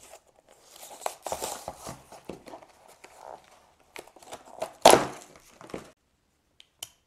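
Cardboard and plastic blister packaging of a folding saw being torn open and crinkled by hand, with one loud crackle about five seconds in and a couple of small clicks near the end.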